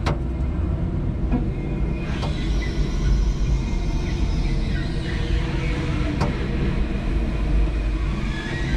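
Electric forklift carrying a heavy load of OSB boards, a steady low rumble from its drive and wheels with faint whining tones above it. There is one sharp click about six seconds in.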